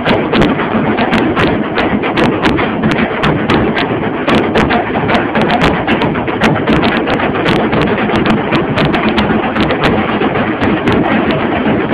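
Tassa drum ensemble playing a loud, fast rhythm: a dense stream of sharp stick cracks over the deeper, continuous beating of the drums, several strikes a second without a break.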